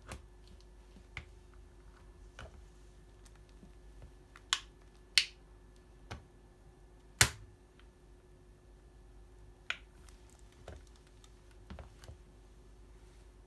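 A plastic calculator clicking and cracking under the metal spikes of track shoes as weight presses down on it. The snaps are sharp and irregular, with three loud ones in the middle and fainter clicks scattered around them.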